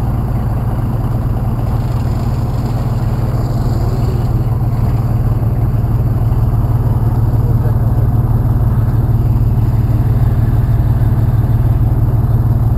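Dodge pickup truck's engine idling steadily with a low drone, growing a little louder about halfway through.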